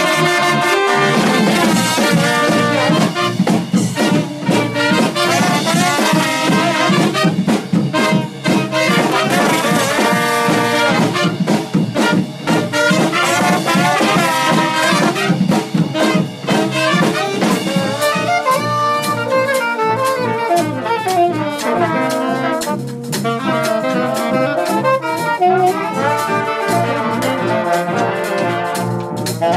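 A brass band of trumpets, trombones, saxophones and sousaphone, backed by a drum kit, playing an up-tempo tune with a steady drum beat.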